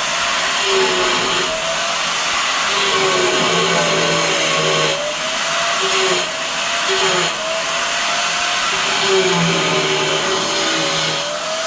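Electric power saw cutting tile: a continuous loud whine and hiss, the motor's pitch dipping and rising again several times.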